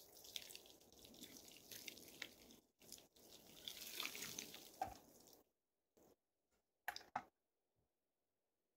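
Water poured from a bucket over a person, splashing in two pours of a few seconds each, followed by a few short knocks.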